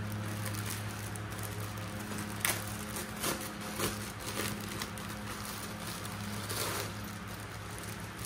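Thin clear plastic poly bag crinkling and rustling in several short bursts as hands pull it open, over a steady low hum.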